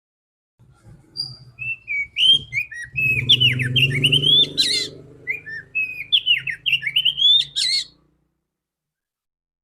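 Female oriental magpie-robin singing two runs of quick whistled notes and chirps, the second starting about halfway through, over a low hum.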